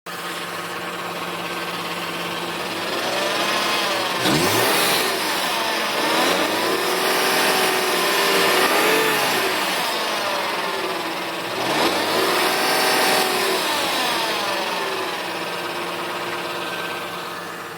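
Lexus IS300 engine running, its speed swinging up and down twice, about 4 and 12 seconds in, between steadier running. It carries a strange noise that the owner cannot place.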